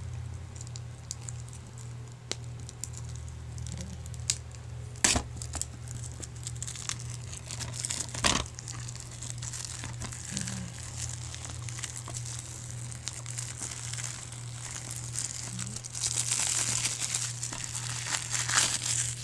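Plastic shrink wrap being torn and crinkled off a DVD case, the crinkling strongest near the end, with two sharp clicks along the way. A steady low hum runs underneath.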